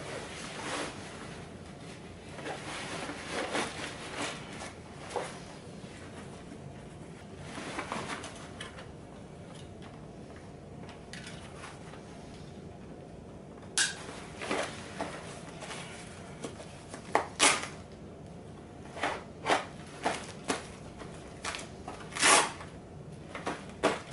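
Rustling of fabric and webbing as a person puts on and adjusts a military uniform and load-bearing vest, followed in the second half by a series of sharp clicks and snaps from the vest's buckles and pouches being handled and fastened.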